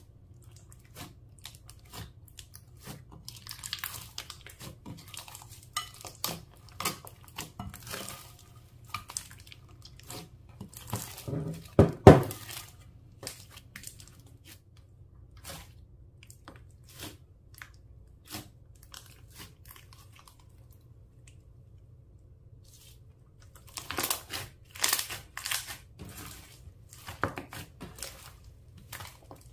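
Clear slime being worked by hand: irregular sticky clicks and crackles. There is one louder, fuller squish about twelve seconds in, a sparser stretch after it, and a dense run of clicks again near the end.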